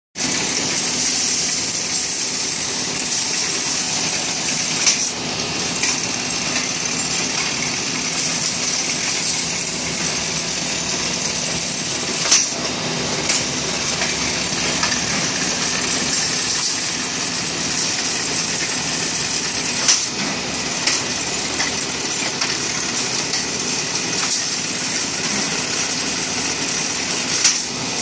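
CNC rebar straightening and stirrup-bending machine running, drawing steel wire in off the coils, with a steady mechanical whir and strong hiss. A sharp clack comes about every seven to eight seconds.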